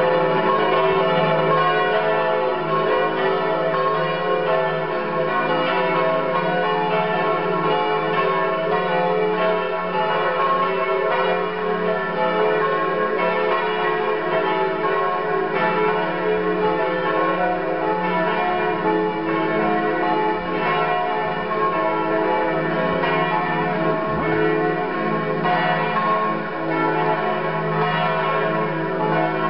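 Several church bells ringing together in a continuous peal, their many overlapping tones sustained without a pause.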